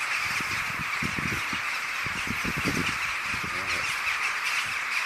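Massed cawing of thousands of rooks flying in to roost: a dense, continuous din of overlapping calls, too many to pick out singly.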